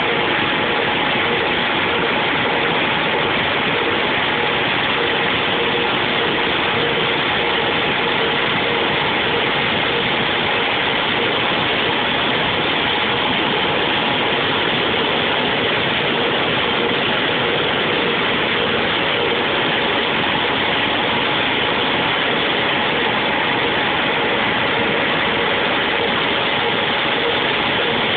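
Machinery running steadily: a loud, unbroken mechanical noise with a faint hum in it and no change in level.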